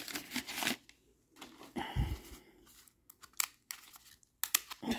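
A wax-paper pack of baseball cards being torn open and crinkled, then a few short crackles and clicks as the cards are handled.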